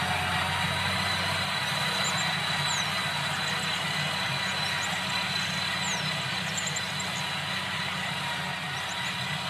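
Valmet tractor's diesel engine running steadily as it works a land plane, with a thin steady high whine over the engine sound.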